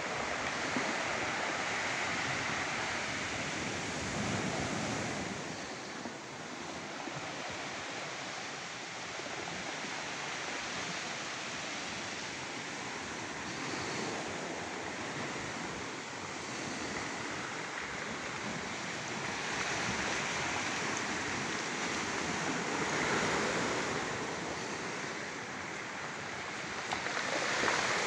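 Steady rush of flowing water that rises and falls slowly in level.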